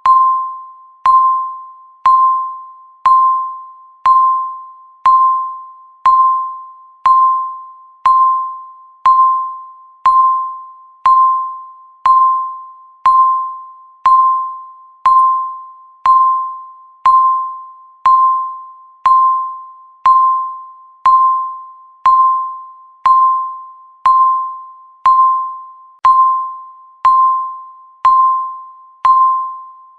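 Countdown timer beeping once a second: a short electronic beep near 1 kHz that starts sharply and dies away before the next, marking each second that passes.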